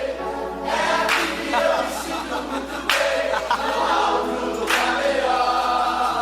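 Live gospel worship singing: a group of voices singing together in choir style, with music.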